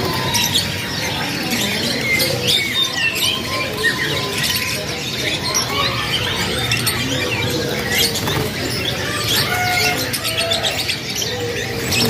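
A cage of many young domestic canaries chirping and twittering in short overlapping calls rather than full song, over a steady background din.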